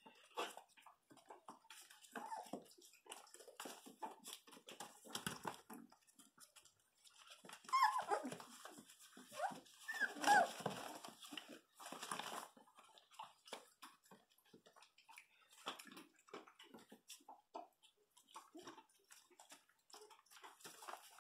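Month-old dachshund puppies whimpering and yelping in short high cries, loudest around 8 and 10 seconds in, amid scattered rustling and clicking as they move about on newspaper.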